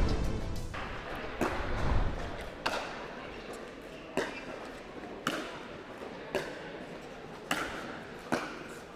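A plastic pickleball struck back and forth with paddles in a rally: sharp, echoing pops about once a second, seven or so in all. It opens on the tail of a graphic's whoosh fading out.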